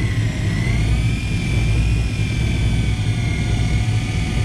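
Electric deep-drop fishing reel winding a fish up under load, its motor whine wavering slightly in pitch, over the steady low rumble of the boat's engines.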